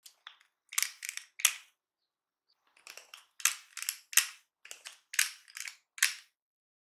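Spring-loaded metal batter scoop clicking and scraping as muffin batter is released into paper muffin cases, in two runs of quick, crisp clicks with a pause between.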